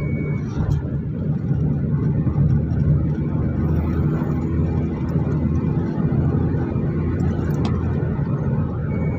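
Inside a moving car: a steady low drone of engine and tyres on the road. A short high beep sounds right at the start and another just before the end.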